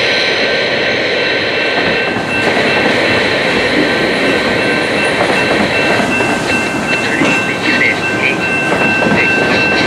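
Freight train of tank cars rolling past, their steel wheels running on the rails with steady noise, and a steady high-pitched tone held over it.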